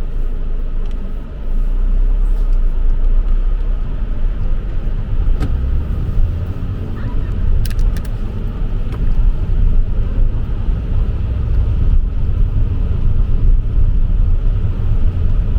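Vauxhall Insignia's 1.4-litre turbo four-cylinder petrol car running, a steady low rumble that grows louder about a second in, with a few short clicks near the middle.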